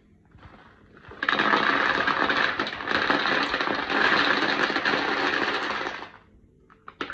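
A bagful of small tumbled gemstone chips poured out onto a cardboard tray, clattering in a continuous rattle for about five seconds before stopping. A short clatter of a few stones follows near the end.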